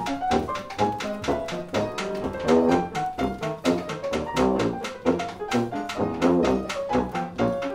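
Live jazz dance band music in 1920s–30s hot-dance style: a piano solo over a steady rhythm-section beat.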